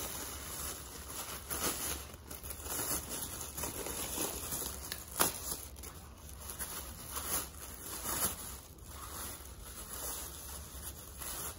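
Thin black plastic bag crinkling, rustling and tearing as it is pulled open and peeled off a new piston and connecting rod, with a few sharper crackles along the way.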